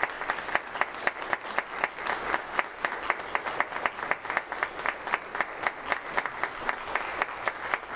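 Church congregation applauding, with one nearby clapper's claps standing out at a steady quick rhythm of about five a second.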